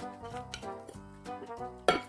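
Background music with brass-like notes in a steady rhythm, with one sharp knock near the end.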